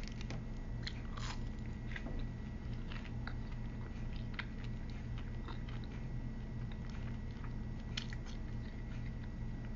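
A person chewing a chicken nugget close to the microphone: scattered soft wet mouth clicks and smacks, over a steady low hum.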